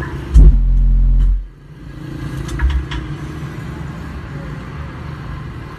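Car subwoofer playing very deep bass: a loud low note starts about half a second in and stops after about a second, then softer steady bass carries on.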